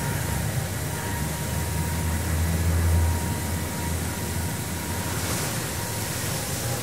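Automated car wash running: a steady low machinery hum under an even hiss of spraying water, with a faint steady whine. The hiss swells briefly about five seconds in.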